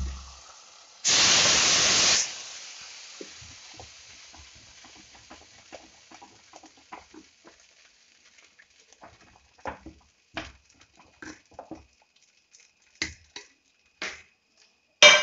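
Hot ghee tempering with fried cashews, raisins and onion sizzling for about a second as it hits the khichdi in an aluminium pressure cooker, the hiss dying away over the next few seconds. Then a steel ladle stirring the thick rice and dal, knocking against the pot now and then, with a sharp knock near the end.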